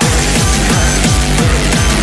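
Background music with a fast, steady beat of deep thumps that drop in pitch.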